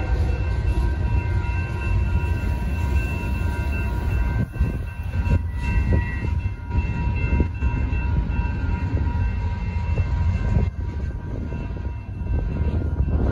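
Freight cars of a BNSF manifest train rolling through a grade crossing: a steady low rumble of wheels on rail, with sharp clicks and clunks as the wheels cross the joints. The crossing signal bells ring steadily over it.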